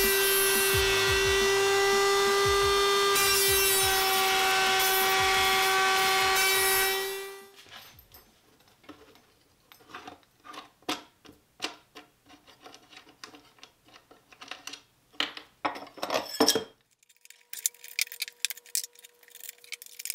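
Router motor running at speed with a steady high whine, then switched off and winding down about seven seconds in. After that come scattered knocks and scraping of wood being handled.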